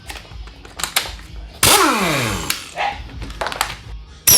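A cordless wheel gun runs in a short burst on a wheel nut about a second and a half in, its pitch falling as it winds down. Scattered metallic clicks and clinks come before and after, with a sharp click near the end.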